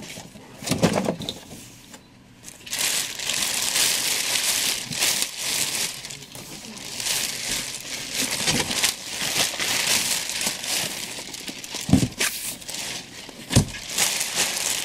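Thin clear plastic bag crinkling and rustling as a boxed statue is worked out of it, with two dull thumps near the end.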